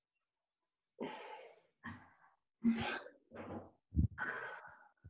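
A person breathing out hard, five short breaths and sighs in a row, one or two voiced like a low groan: the strain of a mobility ball pressed into the shoulder blade while the arm is worked overhead.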